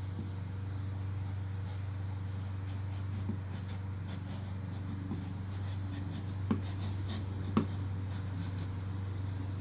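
A flat plastic stove-cleaning scraper rubbing over a vinyl decal in quick repeated scratchy strokes, smoothing it flat onto the motorcycle's painted bodywork, with two sharper clicks a little past the middle.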